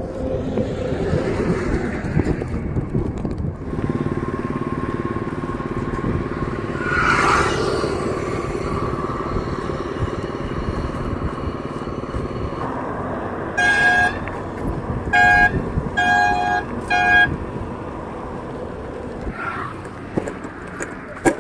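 Wind and traffic noise while riding a bicycle along a highway, with a vehicle passing close by about a third of the way in. About two-thirds of the way through, a vehicle horn sounds four short honks in quick succession.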